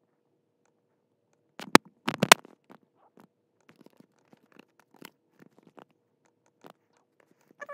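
Typing on a computer keyboard: a few loud clacks about two seconds in, then scattered quieter key clicks.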